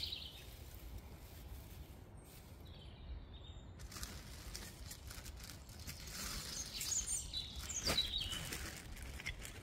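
Woodland songbirds chirping, with close rustling and crackling from about four seconds in: a plastic carrier bag being handled, and a straw-and-birch-bark tinder nest burning in a small hobo stove.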